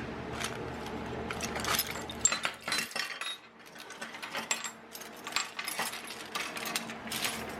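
Small metal parts clicking and clinking irregularly as they are handled.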